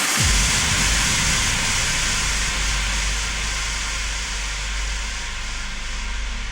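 Electronic trance music in a breakdown: a deep bass hit that drops quickly in pitch just after the start, then a held low bass under a wash of white-noise hiss that slowly thins out.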